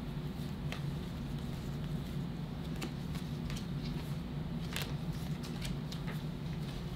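Trading cards being handled and flipped through, with scattered light clicks and scrapes of card edges, over a steady low hum.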